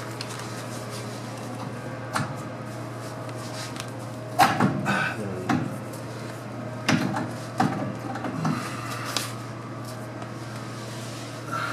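Hand tools and metal parts knocking and clinking under a truck as a turbo exhaust crossover pipe is unbolted: a few scattered clanks, the loudest about halfway through, over a steady low hum.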